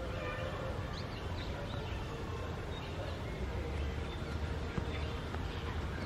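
Outdoor ambience: a steady low rumble with faint, scattered short chirps of small birds.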